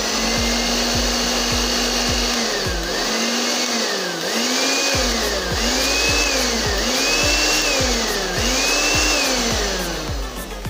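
A Philips 350-watt blender motor, running without its jar on a test after repair. It hums steadily for about two seconds, then speeds up and slows down six times in a row, roughly once a second, as the switch buttons are pressed and released.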